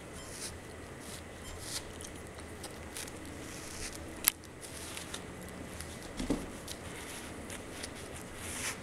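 Giant schnauzer chewing and tugging at a plush toy: scattered soft clicks and rustles of teeth on fabric, with one sharp click about four seconds in.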